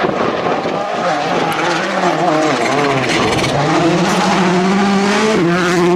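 VW Polo rally car's engine under hard acceleration. The pitch dips, then climbs steadily through a couple of seconds with a quick step up near the end, before the sound cuts off suddenly.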